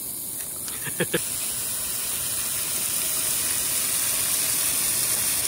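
Beef sizzling on a grill, a steady hiss that grows slowly louder.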